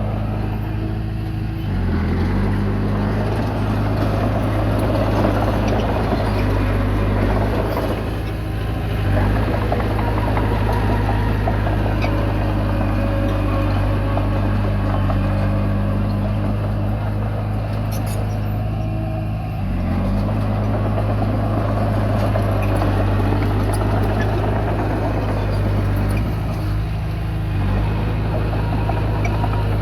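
Komatsu D20P bulldozer's diesel engine running under load as it works, with mechanical noise from the machine over the engine note. The note shifts briefly about 2, 9, 19 and 27 seconds in, as the load changes.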